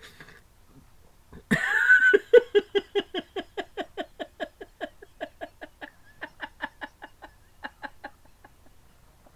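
A man laughing hard: a loud burst about a second and a half in, then a long run of quick rhythmic "ha" pulses, about three or four a second, that slow and fade.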